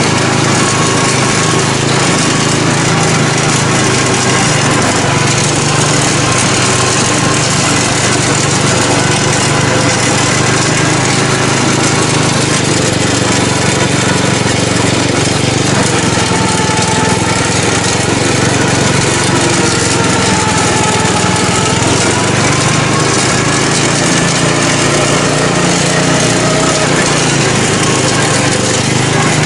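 Engine of a homemade lawn cart built from a 1979 JC Penney riding mower, running loud and steady as the cart is driven, with a faint wavering whine in the second half.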